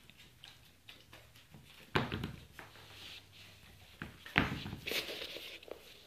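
A sneaker tapped on a ceramic tile floor: two sharp taps about two and a half seconds apart, with fainter clicks between them.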